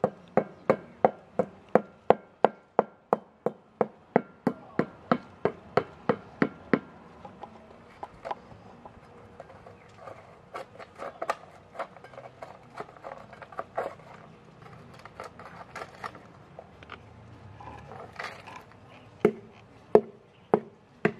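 Sharp knocks, first in a fast even run of about three a second, then sparser and irregular, with a few loud ones near the end.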